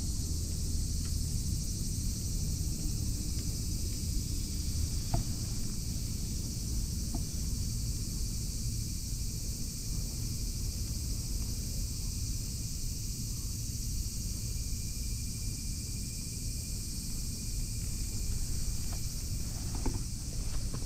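Steady outdoor background: a constant low rumble and a constant high hiss, with a few faint clicks.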